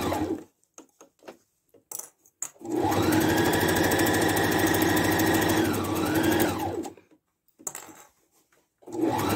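Electric sewing machine stitching a straight seam in starts and stops. It stops just after the start, runs again for about four seconds from about three seconds in, its whine rising as it speeds up and dipping once before it slows to a stop, then starts again at the very end. A few faint clicks sound in the pauses.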